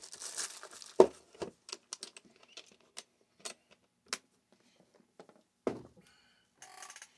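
Small parts and tools being handled on a workbench: a light rustle, then scattered clicks and taps, with a sharper knock about a second in and another near six seconds.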